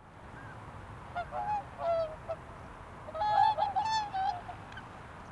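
Waterfowl honking: a few short honks, then a louder run of overlapping honks about three seconds in.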